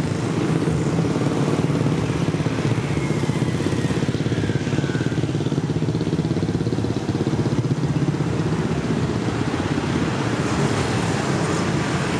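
A vehicle engine running steadily close by, a dense low sound with an even pulse that holds level throughout.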